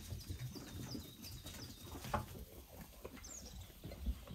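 Sheep feeding at a wooden hay trough: rustling hay and low thuds of hooves and bodies, with a sharp knock about two seconds in and another near the end. A run of small, high, falling chirps sounds throughout.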